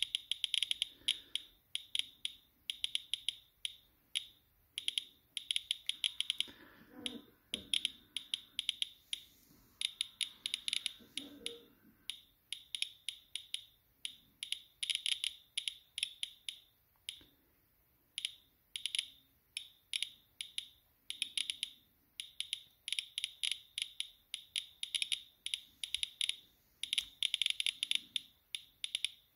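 Inspector Alert Geiger counter chirping with its audio on, several irregular, randomly bunched clicks a second. It is picking up radioactivity from granite countertop at a few hundred counts per minute, well above normal background.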